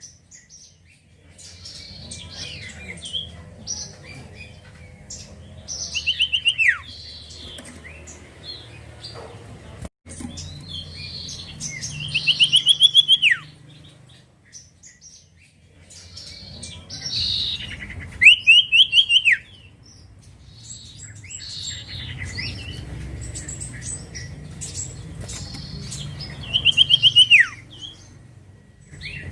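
Common iora (cipoh) singing: a fast-pulsed, falling 'nyiul' call repeated about every six seconds, with short high chirps between. A faint low hum runs underneath.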